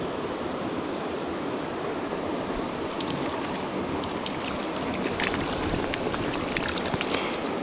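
Small mountain trout stream rushing steadily over its bed, with a few faint ticks scattered through the middle.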